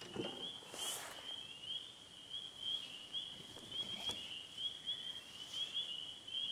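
Steady outdoor chorus of high-pitched chirping calls, several a second, from small animals at the lakeside, with a brief rustle about a second in and a faint knock near four seconds.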